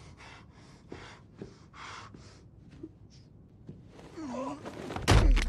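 A man gasping for breath in a quick run of short, ragged breaths, with a knife lodged in his chest. About four seconds in comes a short moan, then a heavy thump just before the end.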